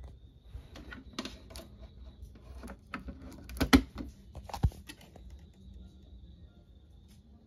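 Irregular clicks and light knocks, with the two loudest knocks a little past halfway.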